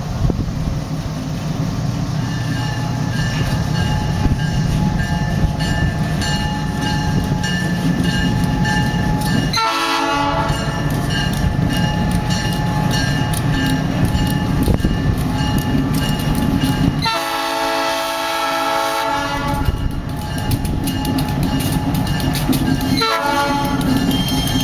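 A diesel switcher locomotive approaches a grade crossing with its engine rumbling steadily, while the crossing bell rings. The locomotive's air horn sounds three times: a short blast about ten seconds in, a long blast of about two seconds around seventeen seconds, and a short blast near the end.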